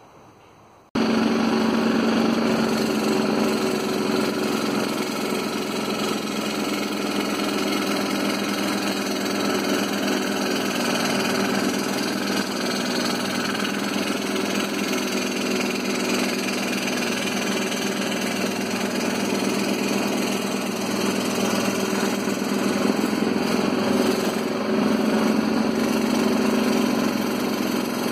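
Scroll saw running and cutting through a thin wooden board, a loud, steady mechanical buzz of the reciprocating blade. It starts abruptly about a second in.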